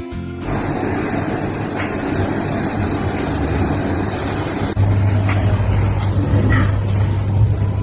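Steady motor-like rumble with a hiss, joined about five seconds in by a louder low hum, as from a running vehicle engine.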